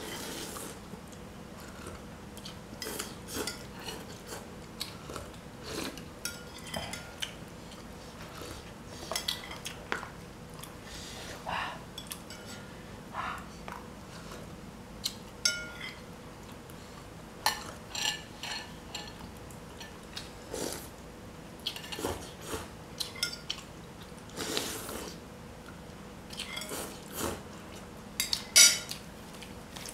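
Spoons and forks clinking and scraping against glass and plastic bowls while two people eat, in irregular clinks scattered throughout, the loudest near the end, with eating noises between them.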